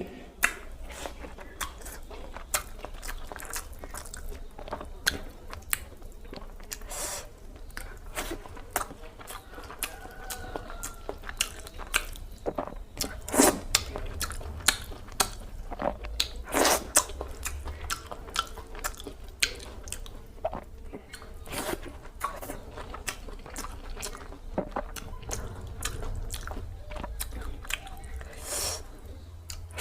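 Close-miked chewing and mouth noises of someone eating rice with potato-and-cabbage curry: irregular wet smacks and clicks, with a low steady hum underneath.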